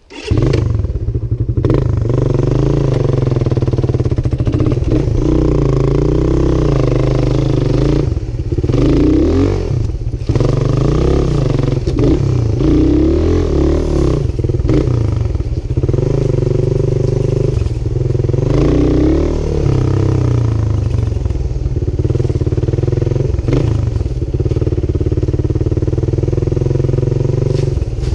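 Motorcycle engine running as the bike is ridden along a rough dirt track, its pitch rising and falling with the throttle and dipping briefly several times. The engine sound comes in suddenly about a quarter second in, after near quiet.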